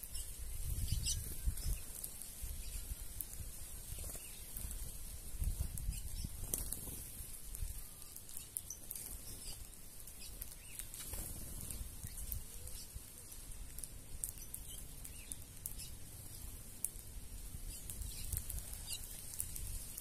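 A flock of red-cowled cardinals feeding on the ground, with wings fluttering now and then as birds fly in and land, and a few short, faint chirps over a low, uneven rumble.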